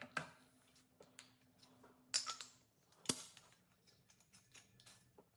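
Scattered clicks and knocks of a propane cylinder and a flamethrower replica being handled on a stone countertop while the cylinder is fitted, the sharpest about two and three seconds in.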